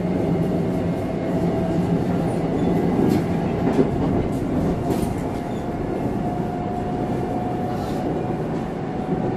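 Subway train running: a steady rumble of wheels on track with a low hum and a faint whine that slowly rises in pitch.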